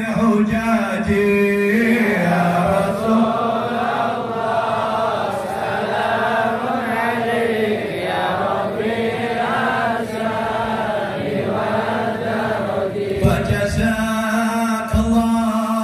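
Male devotional chanting, a melodic chant with long, wavering held notes over a steady low drone.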